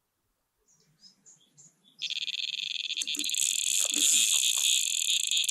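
Electronic carp bite alarm sounding a fast, continuous high-pitched bleeping as a fish takes line: a full run on the rod. It starts about two seconds in, after a few faint ticks.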